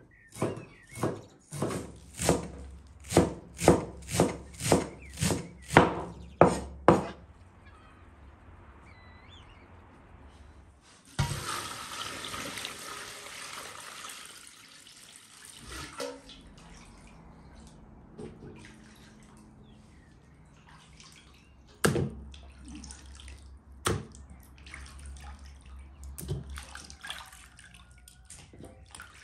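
A knife chops on a wooden cutting board, about two strokes a second, for the first seven seconds. About eleven seconds in, water pours from an enamel bucket into a metal basin of raw lamb pieces for a few seconds. Then hands slosh and rub the meat in the water, with a few sharp knocks against the basin.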